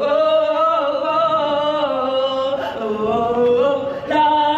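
Voices of costumed Roman legionary street performers chanting long held 'oh' notes together, the pitch stepping up or down between notes every second or so.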